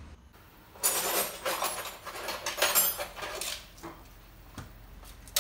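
Small metal parts clinking and scraping as a pipe fitting is worked onto the alternator by hand. The sound is busy for a couple of seconds, then thins to a few light clicks.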